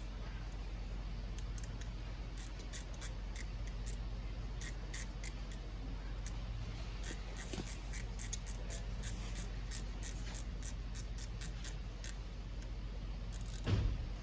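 Light metallic clicking in quick, uneven runs from a hand ratchet tightening the bolt of a seatbelt-lock cover on a car's seatbelt buckle. A low steady hum runs underneath, and there is one louder thump near the end.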